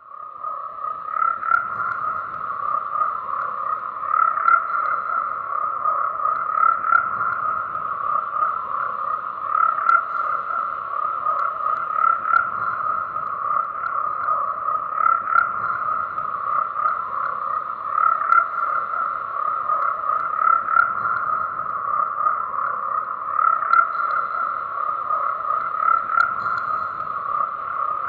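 A dense chorus of frogs croaking, an unbroken pulsing trill with no pauses, swelling up over the first second or two.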